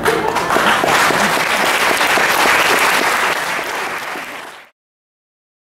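Theatre audience applauding, the clapping fading and then cutting off about four and a half seconds in.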